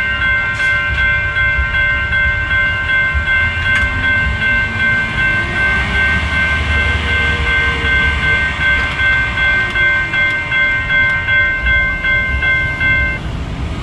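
Electronic grade-crossing warning bell dinging rapidly and steadily over the low running of a diesel truck engine. The bell cuts off suddenly near the end as the crossing gates rise.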